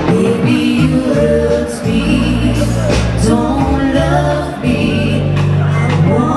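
A pop song with singing over held bass notes and accompaniment.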